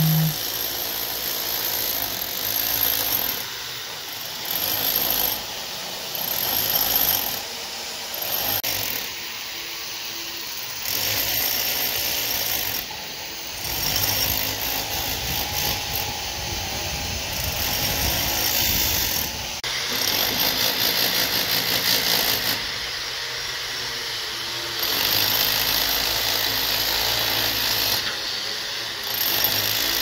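A handheld power tool working on steel rebar, run in repeated bursts of a second or two with the noise of the construction site between them.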